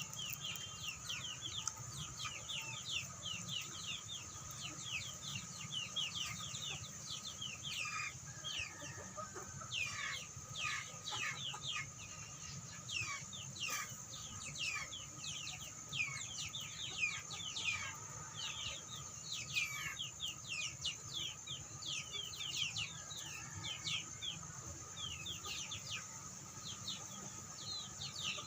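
A flock of native chickens calling: a dense, overlapping stream of short, high, falling peeps that goes on without a break.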